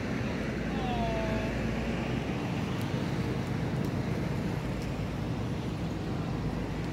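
Steady outdoor background rumble and hiss, like distant traffic, with one short call falling in pitch about a second in.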